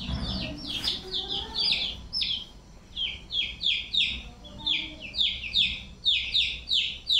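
Two-week-old chicks peeping loudly over and over, a fast run of short falling peeps at about two or three a second.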